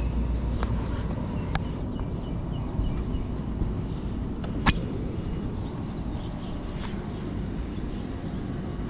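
Steady wind noise on the microphone outdoors, with a few sharp clicks, the loudest about halfway through.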